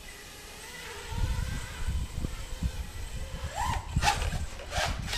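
FPV quadcopter's brushless motors whining faintly, then surging in a rising glide and several sharp bursts in the last second and a half as the quad goes out of control after a flip in air mode. The pilot blames the erratic behaviour on the 4S lipo battery.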